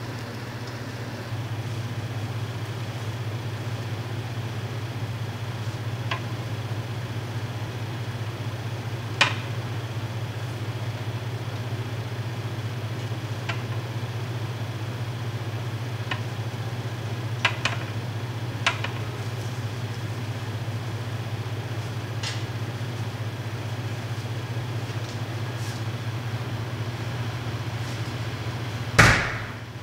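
Steady low hum of a running kitchen appliance, with scattered light clicks and taps and one louder clink near the end.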